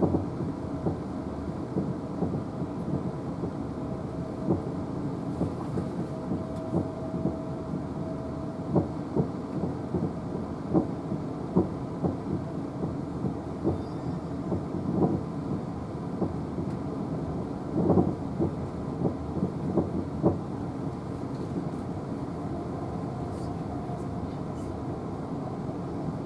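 Siemens Desiro electric multiple unit heard from inside a passenger coach: a steady running rumble with irregular short knocks, and a faint thin tone coming and going.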